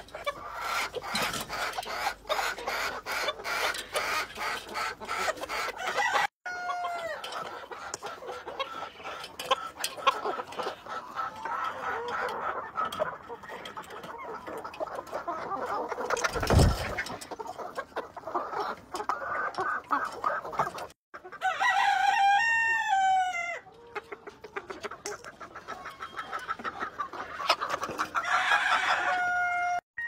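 A flock of chickens clucking while they peck at azolla in a metal rack feeder, with rapid pecking clicks during the first few seconds. A single loud thump comes a little past the middle, and a rooster crows about two-thirds of the way through and again near the end.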